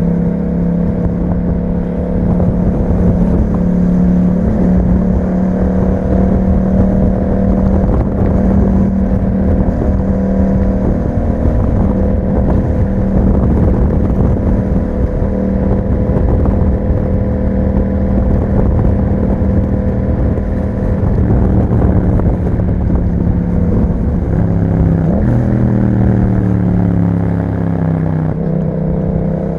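Yamaha MT-07 parallel-twin engine through an Akrapovic exhaust, running steadily under way. About 25 seconds in, the note drops as the engine slows, then rises again near the end as it picks up.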